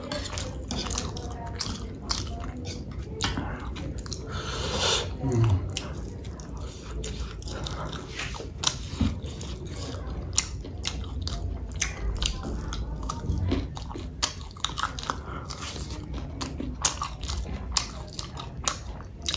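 A person chewing and biting food close to the microphone, with many sharp mouth clicks. There is a louder, noisier stretch about five seconds in.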